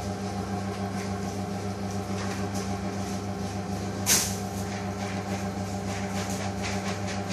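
Steady mechanical hum of kitchen machinery, with a single sharp click about four seconds in.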